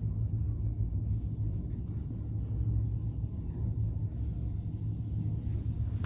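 Steady low rumble inside a Xizi Otis Gen2 traction elevator car as it travels upward through the shaft.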